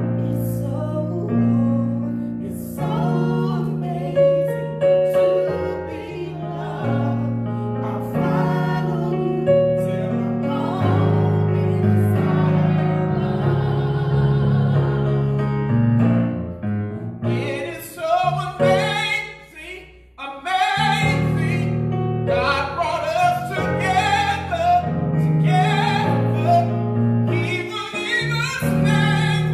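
A woman singing a worship song into a microphone, accompanied by piano-voiced chords on a Yamaha MOXF keyboard. The music almost drops out for a moment about twenty seconds in, then the singing comes back stronger.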